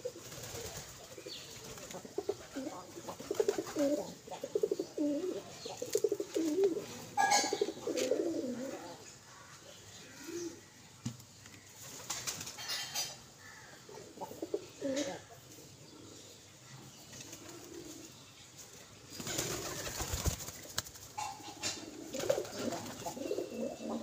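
A flock of pigeons cooing over and over while feeding, with short bursts of wing flapping now and then.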